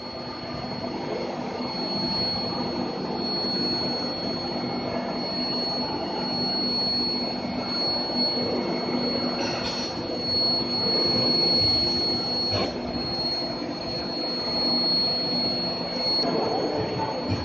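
Metal induction heating furnace running: a steady high-pitched whine held at one pitch over a steady low hum and machine noise, with a brief click about twelve seconds in.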